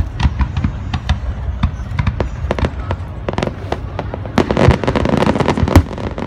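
Fireworks display: a quick string of bangs that grows denser and louder about four seconds in.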